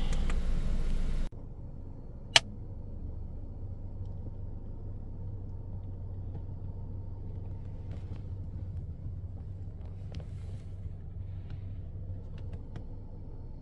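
Steady low hum inside a running Honda HR-V's cabin, after a louder fan-like hiss that cuts off abruptly just over a second in. A single sharp click comes about two seconds in, with a few faint ticks later.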